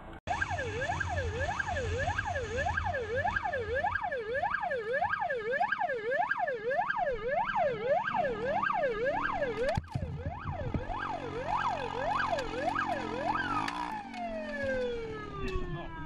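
Police siren on a fast yelp, its pitch sweeping up and down about twice a second, with a brief dropout about ten seconds in. Near the end it stops cycling and winds down in one long falling tone.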